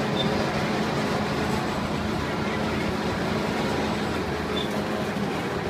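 A steady motor hum, like an engine or machine running, over a constant background din.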